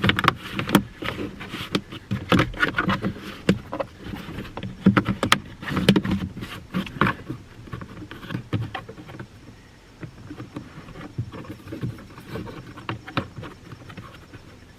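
Irregular clicks, knocks and rattles of plastic interior trim being handled and snapped back into place as the cabin air filter area behind the glove box is reassembled. It is busiest in the first half and sparser later.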